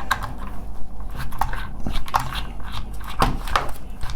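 Irregular sharp clicks and short scrapes of a screwdriver working the Torx screws on a car door lock mechanism, with plastic and metal parts being handled.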